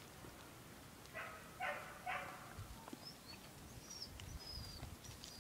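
A dog barks three times in quick succession about a second in. A few faint, high bird chirps follow.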